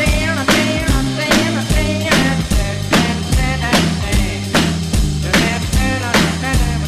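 Background music: an instrumental stretch of a rock song with a steady beat about two strikes a second under a bass line and sustained, wavering lead notes.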